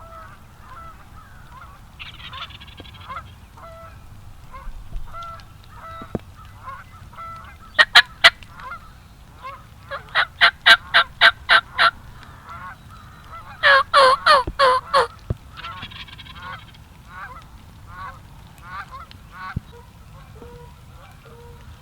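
Large fowl calling in loud runs of short, evenly spaced notes: three quick notes about eight seconds in, a run of about eight a little later, and a denser run near the middle, over quieter birdsong.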